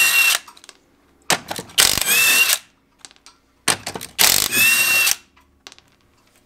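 Cordless impact wrench spinning lug nuts off a car wheel: three short bursts of hammering with a motor whine that bends in pitch. The first burst ends just as it begins, the others come about two and four and a half seconds in, with a few small clicks between.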